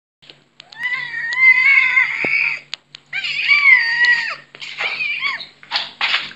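A domestic cat yowling loudly for an egg: two long, wavering yowls, then several shorter calls near the end.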